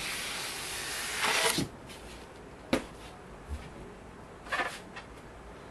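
Packaging being handled: a rustling, sliding hiss for about a second and a half that swells briefly, then a single sharp knock about halfway through, and a short rustle near the end.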